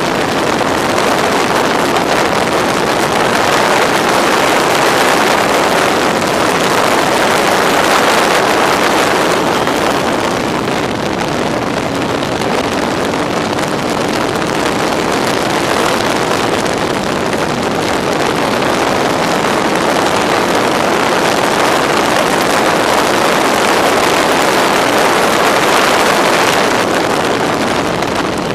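Yamaha R1 inline-four motorcycle engine of a Locost race car running hard, heard from an onboard camera under heavy wind rush on the microphone. The sound swells and eases by turns through the laps of acceleration and corners.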